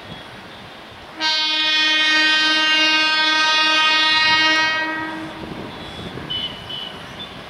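Electric multiple-unit (EMU) local train sounding one long, steady horn blast that starts about a second in and lasts nearly four seconds before dying away, leaving the lower noise of the train.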